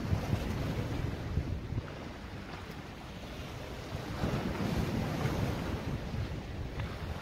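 Wind buffeting the microphone over open-sea waves washing against the boat, with the water noise swelling louder about four seconds in.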